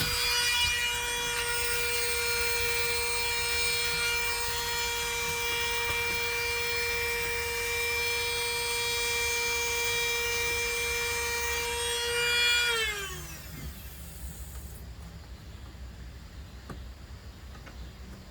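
A Dremel rotary tool runs at a steady high whine while it grinds the cutters of a milling chainsaw chain. About 13 seconds in it is switched off, and the whine falls in pitch as it spins down and stops.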